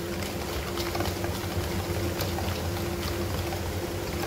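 Hand whisk beating an egg into thick chocolate brownie batter in a steel bowl: soft, irregular scraping and ticking strokes over a steady low hum.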